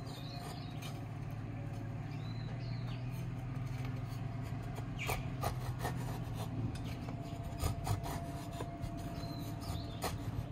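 A kukri blade shaving curls from a wooden stick to make a feather stick: a run of short, irregular scraping cuts of steel on wood.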